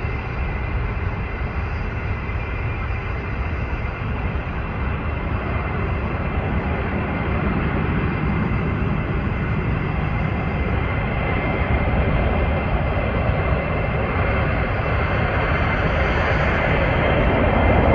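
Boeing C-17 Globemaster III's four turbofan engines on landing approach: a steady jet rumble with a high, even whine, growing gradually louder as the aircraft comes closer.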